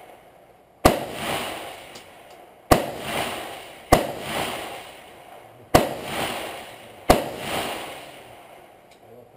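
Five rifle shots at an uneven pace, each a sharp crack followed by a rolling echo that dies away over a second or two.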